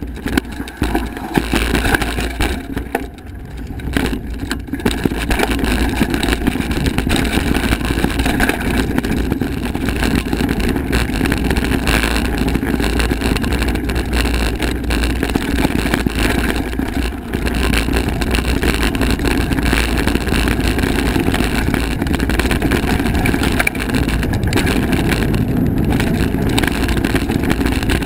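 Kona hardtail mountain bike ridden fast down dirt singletrack: steady wind rush on the helmet-camera microphone over the tyres rumbling on the trail. It is quieter and uneven for the first few seconds, then steady once the bike picks up speed.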